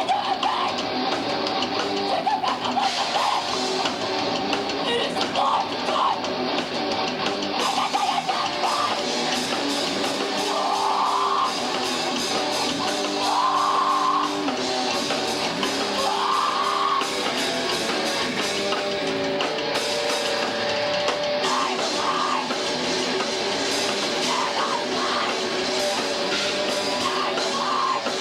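Rock band playing, with electric guitar and drum kit in a heavy, metal-leaning style.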